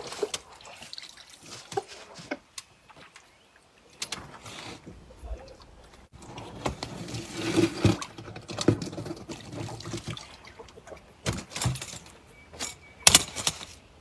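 Water splashing and dripping around a landing net with a fish in it as the catch is handled, with irregular sharp knocks and rustles, the loudest knocks near the end.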